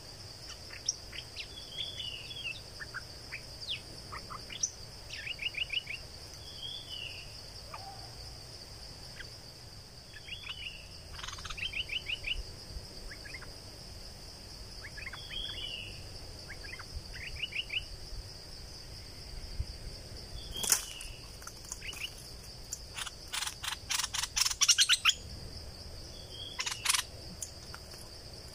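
Bulbuls chirping and calling in short whistled phrases over a steady high insect drone. From about two-thirds of the way in come louder runs of rapid harsh notes, about four a second, the loudest of them near the end.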